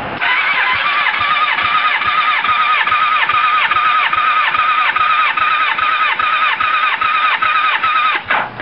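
Starter motor cranking a 1987 Kawasaki ZX750R's inline four-cylinder engine during a compression test on cylinder number four. It makes a steady whine that dips in pitch in a regular rhythm, a little under three times a second, as the engine comes up on compression. The cranking stops just before the end.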